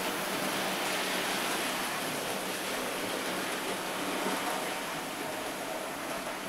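OO-gauge model steam train running along its track, giving a steady rushing hiss with a faint hum underneath.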